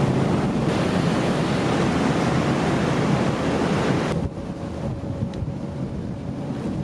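Wind rushing over the microphone and water washing past on the open deck of a moving tour boat. The noise drops quieter about four seconds in, leaving a fainter rush with a faint steady hum underneath.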